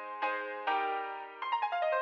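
Background music on a keyboard, electric-piano sound: ringing chords struck about every half second, then a quick run of descending notes near the end.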